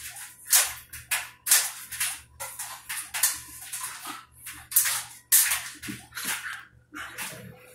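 Two puppies wrestling on a wet wooden floor: irregular scuffling and scrabbling of paws and bodies in quick, short rushes of noise.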